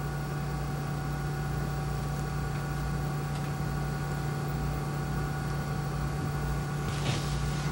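Steady low hum with a hiss and a few faint, steady higher tones.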